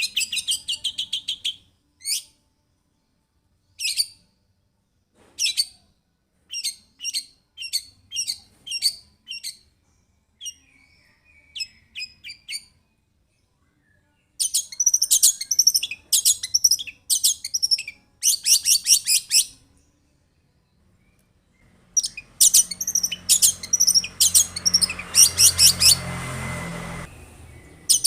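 Long-tailed shrike (cendet) singing loud, sharp, high-pitched notes. A fast chattering trill at the start gives way to single calls and short runs with silent gaps between them, then a dense burst of calls near the end over a low background rumble.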